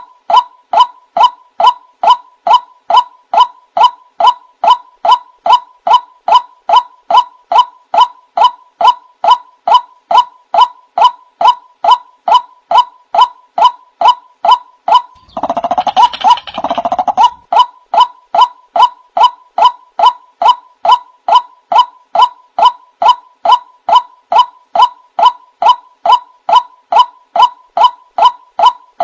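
Male white-breasted waterhen calling: a long, even run of short, loud 'wak' notes at about two and a half a second, with a rougher, lower stretch of about a second and a half just past halfway.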